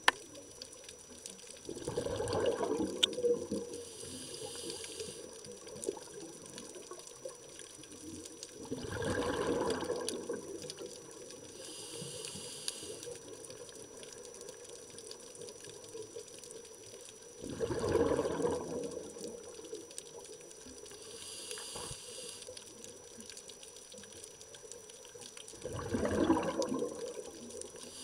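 A scuba diver breathing through a regulator: four loud gurgles of exhaled bubbles about every eight seconds, each followed a couple of seconds later by a short, faint hiss of inhaling.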